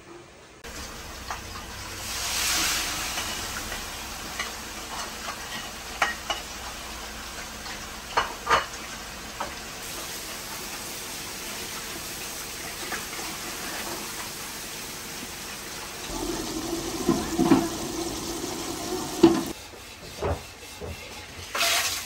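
Grated carrot frying in hot oil in an aluminium pot, sizzling steadily while a wooden spatula stirs it and knocks against the pot a few times. The sizzle stops shortly before the end.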